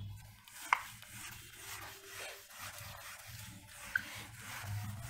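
Whiteboard eraser rubbing back and forth across a whiteboard's surface, a dry scrubbing sound with two brief squeaks, one near the start and one near the end.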